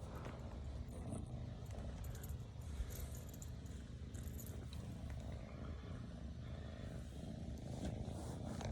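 Domestic cat purring steadily, a low rhythmic rumble close to the microphone, with some faint rustling from handling a few seconds in.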